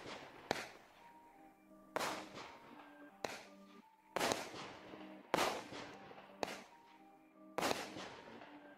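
Kolibri 16-shot consumer fireworks battery firing, about one shot a second: seven sharp bangs, each trailing off briefly.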